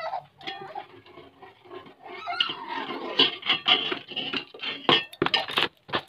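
A small child crying and whining, a bending, pitched wail that comes and goes, with a few sharp knocks near the end.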